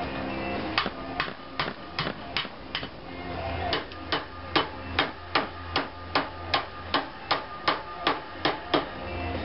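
Rubber mallet striking a thin steel sheet-metal panel in a steady run of blows, about two and a half a second, to bend it. The blows pause briefly about three seconds in, then carry on.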